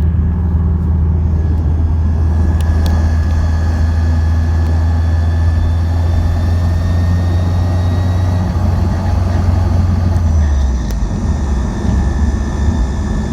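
2006 Subaru Impreza WRX running with a steady low drone and a thin, high whine that rises slowly, both shifting about ten seconds in. This is the grinding, metallic noise from the gearbox area that the owner is chasing, which a gearbox swap did not cure.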